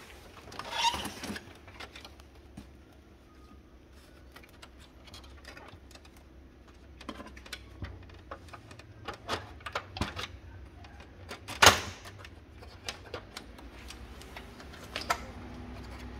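Plastic casing of a Brother HL-L2321D laser printer being handled and prised apart by hand: irregular clicks, taps and scrapes, the loudest a sharp knock about two-thirds of the way through.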